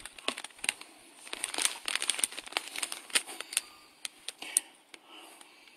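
Packaging crinkling and rustling as it is handled during a jersey unboxing, with many irregular sharp crackles that thin out near the end.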